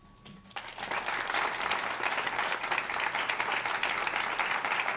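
Audience applauding: many people clapping, starting about half a second in and going on steadily.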